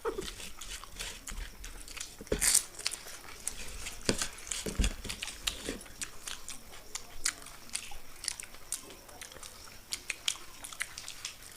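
Fuchka (pani puri) being eaten fast: crisp puri shells crunching between the teeth and chewing, many small crunches throughout, with a louder crunch about two and a half seconds in.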